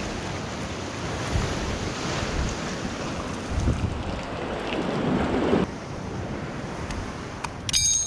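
Ocean surf washing against rocks, with wind buffeting the microphone. A short metallic clink near the end.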